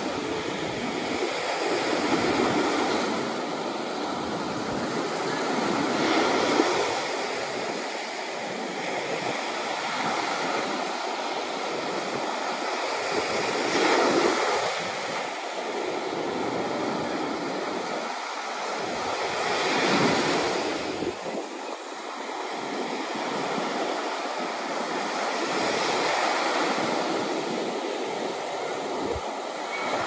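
Small sea waves breaking and washing up a sandy beach, the surf swelling and easing every few seconds.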